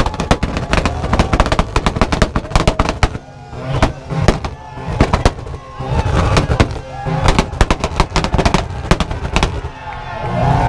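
Car engine held on a two-step launch limiter, its exhaust firing rapid volleys of loud bangs and pops in several bursts over a low engine rumble. A crowd shouts and cheers between the bursts.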